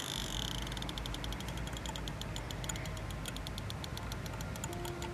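Fishing reel clicking in a rapid, uneven run of sharp ticks while a hooked carp is being played.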